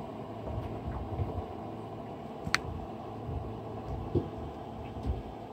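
Steady low background rumble with a few soft low thumps, and one sharp click about two and a half seconds in.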